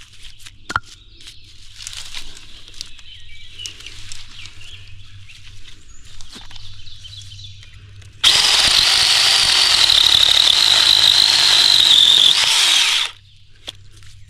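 RLSOO battery-powered mini chainsaw with a 6-inch bar, running and cutting a cedar limb: a steady high electric-motor whine with chain noise. It starts suddenly about eight seconds in and cuts off abruptly about five seconds later. Before it come quieter rustling and a few clicks of branches being handled.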